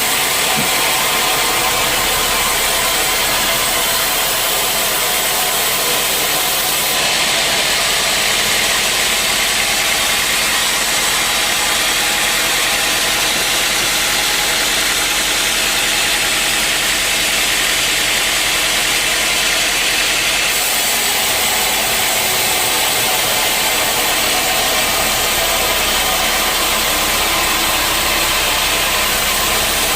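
Sawmill machinery running steadily, with a brighter, hissier sound from about seven seconds in until about twenty seconds in.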